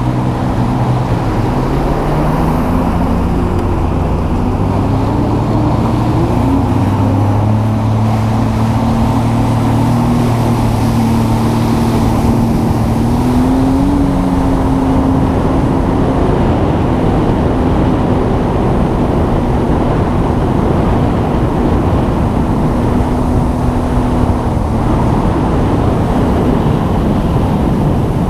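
A small engine running continuously under way, its note shifting up and down several times, over a loud steady rushing noise.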